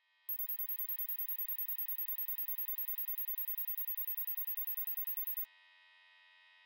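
Electronic soundtrack: a very high-pitched tone beeping rapidly, about eight times a second, over a steady hum of several held notes. The beeping stops about five and a half seconds in, leaving the hum.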